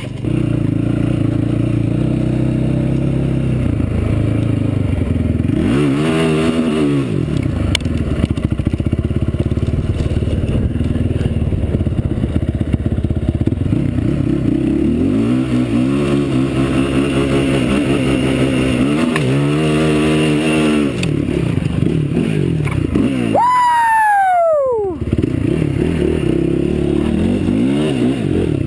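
Four-wheeler engine heard from on board, revving up and down again and again as the quad is ridden. Near the end the engine note climbs high and then falls steeply over about a second.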